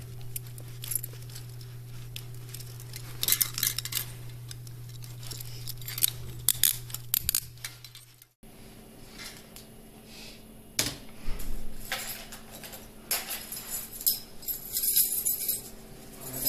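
Steel handcuffs clinking and rattling as they are unlocked from the wrist and clicked onto a bench cuff ring, in short clusters of metallic clicks with a jingle of keys, over a steady low hum. The sound cuts off abruptly about eight seconds in, and scattered clicks and rattles follow.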